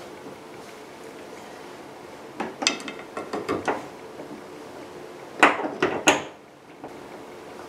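Plastic trim piece on a 3rd-gen Camaro's rear hatch opening being pressed and snapped into place by hand: a run of clicks and knocks about two and a half seconds in, then a louder cluster about five and a half seconds in.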